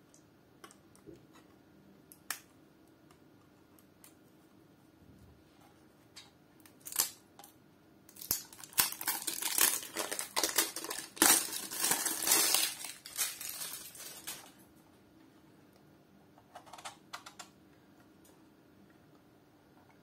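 Plastic shrink-wrap film crinkling as it is torn and peeled off a boxed battery tester. It is loud and dense for about six seconds midway, with light clicks and taps of handling before and after.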